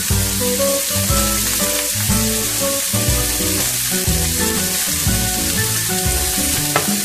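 Chicken feet frying in oil with onion, garlic and ginger in a hot stainless steel pan, a steady sizzle. Background music with a regular bass beat plays over it.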